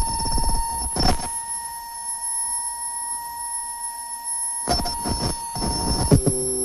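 Cut-up harsh noise music from a modular synthesizer: steady sine-like tones held under sudden bursts of clicking noise, at the start, about a second in, and again for over a second near the end, when a lower tone comes in.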